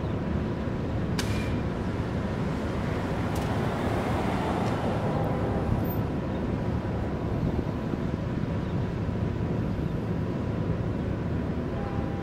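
Steady low rumble of BNSF diesel freight locomotives approaching under power, with wind buffeting the microphone.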